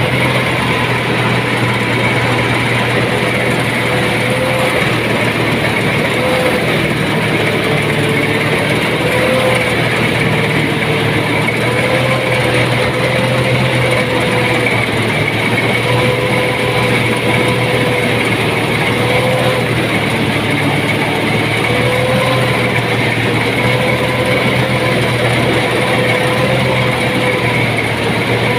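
Engine-driven rice thresher running steadily: a constant mechanical drone with a hum that wavers slightly in pitch.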